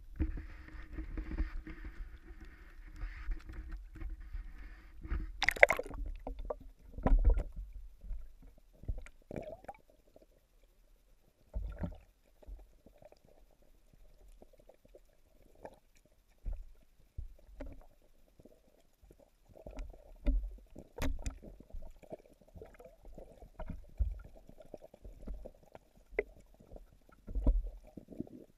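Underwater sound through an action camera's waterproof housing submerged in a pond: muffled gurgling with scattered dull knocks and low thumps. About five to six seconds in, a sharp splash-like burst as the camera goes under the surface.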